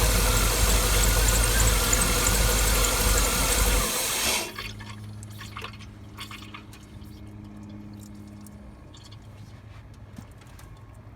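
Cadillac 6.2 L V8 running with its valve cover off, then switched off about four seconds in. The owner suspects its lifter tick comes from a rocker arm that is not getting oil. After shutdown come faint clicks and a low hum that stops a few seconds later, as oil builds up and wells over the rockers.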